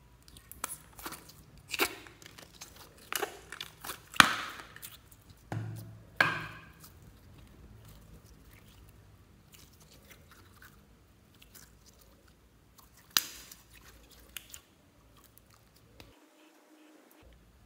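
Thick slime squelching and popping as it is squeezed out of a plastic bottle and stretched by hand: a run of sharp pops over the first six seconds or so, then a quieter stretch with one more pop about two-thirds of the way through.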